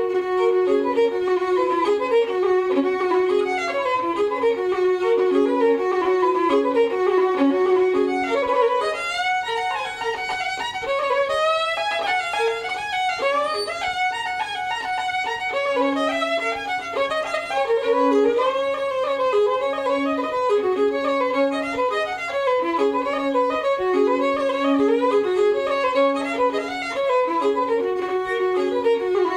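Fiddle music: quick runs of notes over repeated held lower notes, with a brief flurry of sliding notes about ten seconds in.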